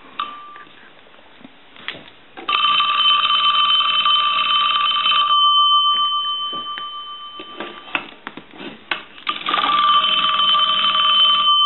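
Western Electric Princess telephone bell with its single brass gong, rung from a test set: two rings about three seconds each, a fast rattle of clapper strikes on the gong whose tone hangs on after each ring stops. The bell's clapper assembly and tension spring have just been readjusted after being found out of alignment.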